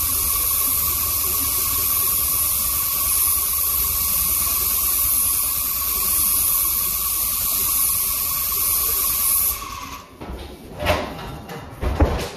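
Airless paint sprayer gun spraying a mist coat: a steady hiss with a steady tone in it, which cuts off about ten seconds in when the trigger is released. After that come a few irregular knocks and bumps, the loudest near the end.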